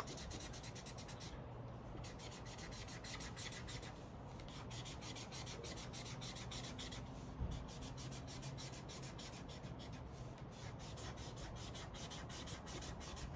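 A thick marker scribbling back and forth on paper laid on a clipboard, a quick, steady run of scratchy strokes, several a second, as an area is coloured in.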